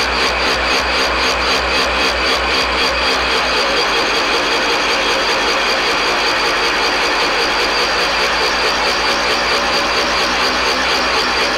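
Milling machine fly cutter taking a surfacing cut across the cast-iron vice ways of a power hacksaw body: a steady cutting noise that pulses about six times a second, once for each turn of the single cutter, over a steady whine from the mill.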